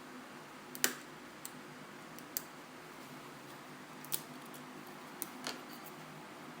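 About six small, sharp clicks and taps of hand tools against the parts of an iPhone 4S being taken apart, spread unevenly over a faint steady hiss and hum; the loudest comes about a second in.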